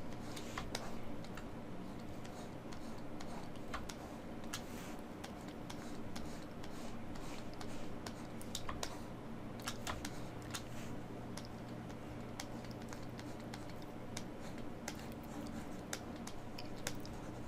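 Scattered light clicks and taps from working at a computer, irregularly spaced, over a steady low electrical hum.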